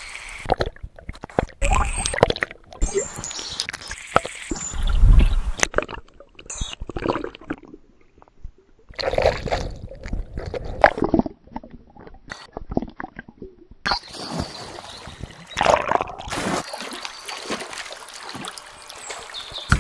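Water splashing and sloshing around a person wading in a lake, in irregular bursts with short quieter gaps.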